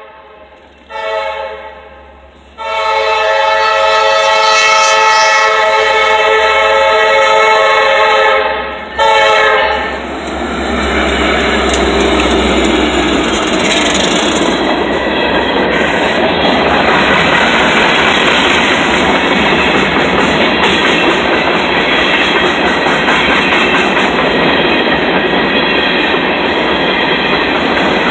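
Diesel freight locomotive's air horn sounding for a grade crossing: a short blast, a long blast of about six seconds and another short blast, a chord of several notes. Then the locomotive and a string of covered hopper cars pass close by, with a steady rumble and the clatter of wheels on the rails.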